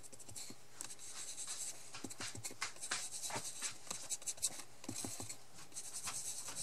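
Foam finger dauber rubbing ink onto a die-cut paper frame on a sheet of paper: a run of short, irregular scratchy strokes.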